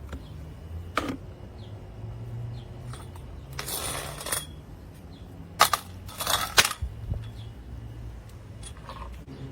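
Sharp clicks and clatter of the Intex handheld pool vacuum's hard parts being handled and snapped together as brush heads and extension rod are fitted, with a short scraping slide about four seconds in and a quick run of loud clicks a little later.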